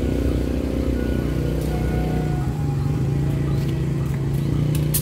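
Diesel engine of a standing passenger train running at idle: a steady low drone that holds even throughout.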